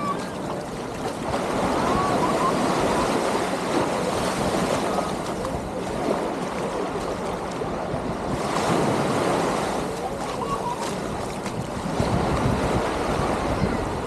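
Small waves washing up and breaking on a sandy shore at the waterline, a steady rushing wash, with wind buffeting the microphone, heavier in the last couple of seconds.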